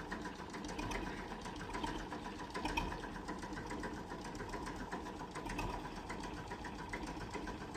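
Vintage tractor engine running with a fast, even ticking beat.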